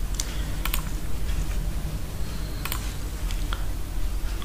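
A few scattered sharp clicks of computer mouse buttons and keys, some in quick pairs, over a steady low hum.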